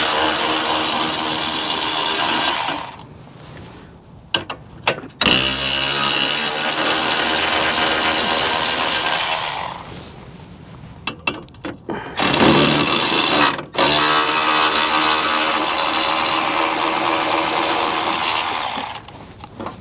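Milwaukee cordless 3/8-inch electric ratchet with a 15 mm socket running bolts out. The motor runs in three long stretches of a few seconds each, the last briefly interrupted, with short pauses and light clicks between them as the socket moves to the next bolt.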